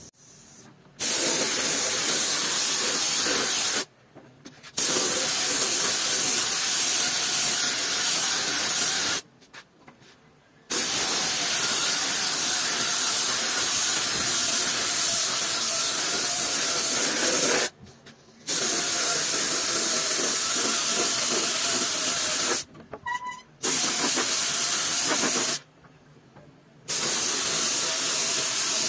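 Compressed-air spray gun hissing as it sprays grey primer onto a motorcycle fuel tank, in six long passes of several seconds each, broken by short pauses.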